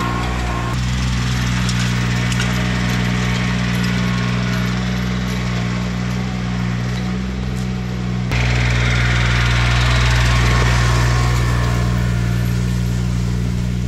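Cub Cadet 1512 garden tractor's engine running steadily under load as it skids logs on a chain. The sound shifts abruptly about a second in and again about eight seconds in, and is louder after the second shift.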